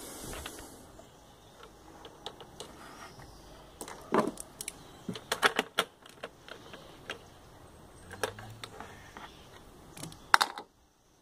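Irregular clicks, taps and light rattles of rubber hoses and plastic fittings being handled and worked loose around the intake manifold cover of a BMW 320d E46 diesel. They come in several bunches, with the sharpest click near the end.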